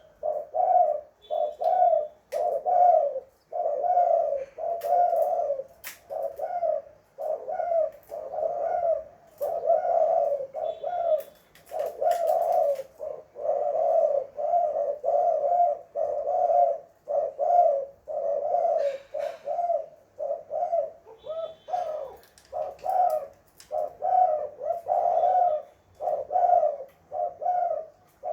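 Spotted dove (tekukur) cooing over and over, a steady run of low coos with only short gaps between them. A few faint clicks sound here and there.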